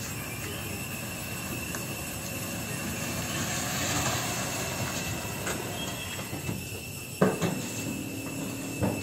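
Steady mechanical running noise with a thin, high steady whine over it, swelling briefly in the middle, and two sharp knocks near the end.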